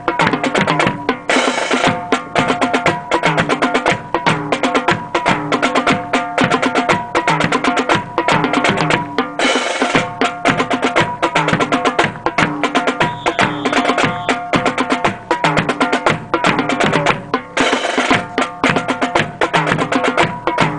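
March music with a steady, driving drum beat and pitched instruments accompanying a rifle drill, with a crash-like burst three times, about eight seconds apart.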